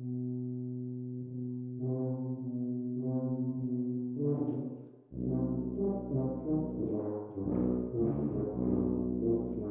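Two contrabass tubas playing a duo. A long held low note lasts about four seconds. After a brief break around five seconds in, a deeper passage of shorter, changing notes follows.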